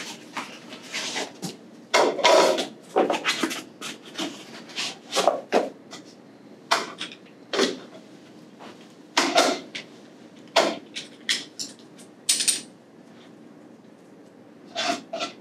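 Irregular sharp clicks and knocks of metal parts and tools being handled on a workbench as pressure gauges are picked up and threaded into a sprinkler alarm valve's trim.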